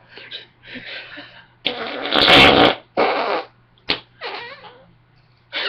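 A run of imitation fart noises made by a person: a few short raspberry-like bursts, one long loud one about two seconds in, then a few shorter ones.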